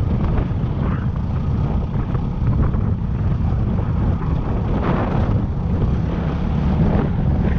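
Yamaha WR250R's single-cylinder four-stroke engine running under way, heard from the bike itself, heavily mixed with wind buffeting on the microphone. The sound is a steady, dense low rumble throughout.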